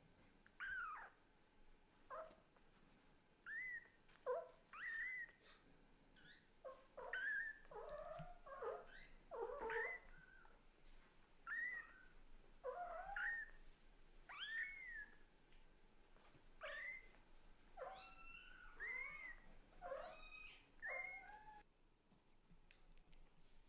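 Newborn Scottish Fold–British Shorthair kitten mewing over and over, calling to its mother cat: short, high-pitched cries about once or twice a second that stop about two seconds before the end.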